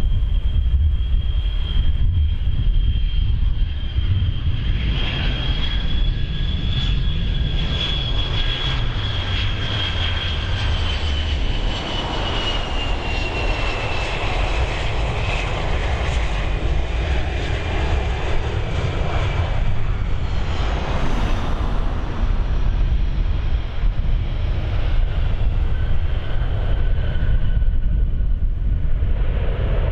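Boeing 727-200's three Pratt & Whitney JT8D turbofan engines on a landing approach and pass: a deep rumble with a high, steady whine that slowly falls in pitch as the jet goes by. About two-thirds of the way in, a broad rush of engine noise swells.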